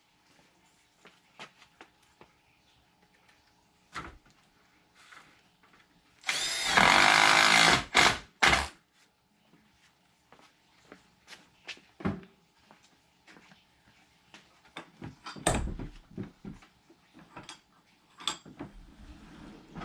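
Power drill driving a screw in one steady run of about a second and a half, about six seconds in, then two short bursts. The rest is scattered knocks and clicks of handling tools and trim.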